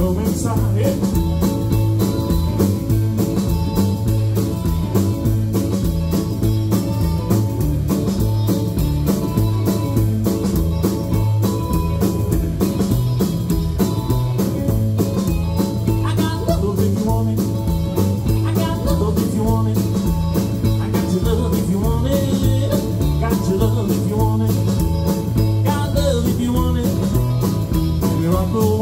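Live rockabilly band playing, with guitar over a steady beat.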